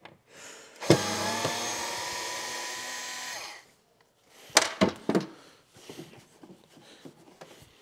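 Small cordless electric screwdriver running for about two and a half seconds, spinning up at the start, as it backs out a screw from a motorcycle trunk panel. It is followed by a few sharp clicks and knocks.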